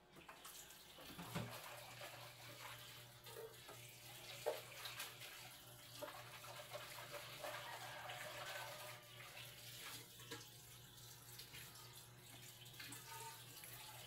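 Water running and splashing with small irregular clicks, with a steady low hum that comes in about a second in.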